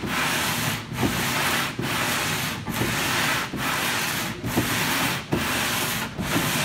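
Heavy surface plate faced with 36-grit sandpaper being dragged back and forth by hand across a hydroplane's bottom: coarse, rasping sanding strokes a little under a second each, with a brief break at every change of direction. It is the rough first pass that knocks down the high spots to flatten the hull bottom.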